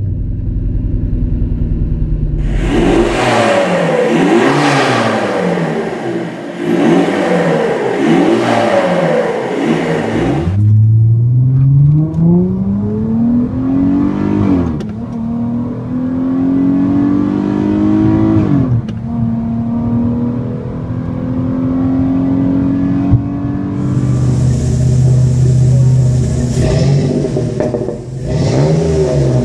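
Car exhausts one after another. First an engine is revved hard in quick repeated blips. Then a Chrysler 300S, heard from inside the cabin, accelerates through the gears with a rising engine note and two upshifts before settling into a steady cruise. Last, a Jeep Liberty V6 with a Flowmaster Super 44 muffler idles and is revved once near the end.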